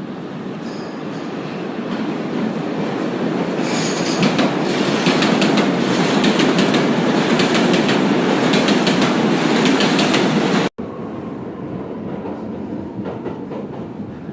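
Loud rumbling noise with a fast run of clattering clicks, building up to its loudest over the first few seconds. It cuts off abruptly about three-quarters of the way in, giving way to a quieter steady rumble.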